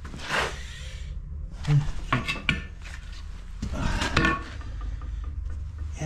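Work boots stepping and scuffing across a gritty new concrete floor, with a few sharp clicks and clatters about two seconds in and again around four seconds, over a steady low rumble.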